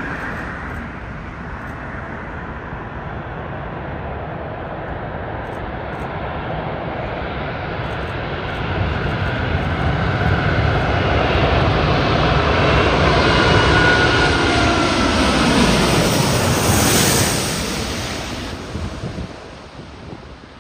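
Airbus A380's four turbofan engines on landing approach, growing steadily louder as the jet nears. The engine whine drops in pitch as it passes close about three quarters of the way through, then fades quickly near the end.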